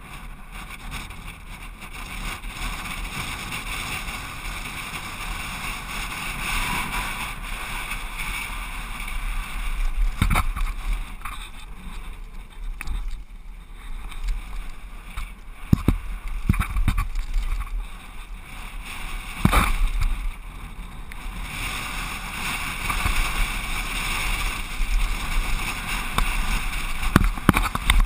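A downhill mountain bike rides fast over a dirt trail, heard from a camera mounted on the rider. Steady wind rush and tyre noise run underneath, with the bike clattering and several sharp knocks as it hits bumps.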